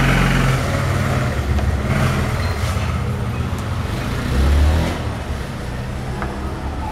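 Motor vehicle engine running with a steady low hum, swelling briefly about four and a half seconds in.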